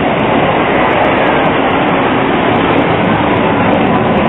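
Modern low-floor articulated tram passing slowly at close range: the steady running noise of its wheels on the rails and its drive.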